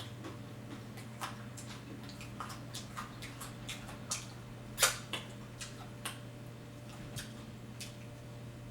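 Close-miked chewing and crunching of tortilla-chip nachos: irregular crisp clicks and crackles, the loudest a little before five seconds in, over a low steady hum.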